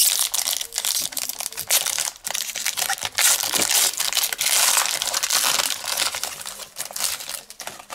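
A foil trading-card pack wrapper being torn open and crinkled by hand: dense crackling and crinkling that eases off near the end.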